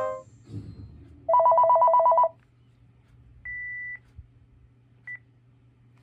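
Panasonic KX-TGF780 cordless phone handset sounding about one second of a fast-warbling two-tone electronic ring, then a half-second beep and, about a second later, a short beep.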